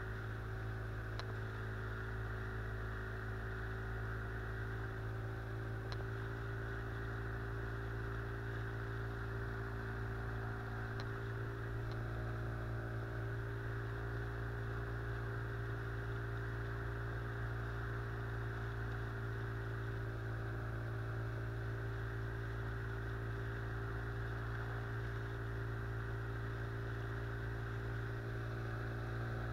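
Outboard motor driving an inflatable boat upriver at a steady throttle: an even, unchanging engine drone.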